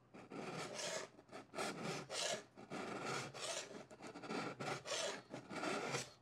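Hand file rasping in quick, repeated strokes along a snowboard's steel edge near the nose, detuning the edge past the contact point so it is dulled rather than razor sharp.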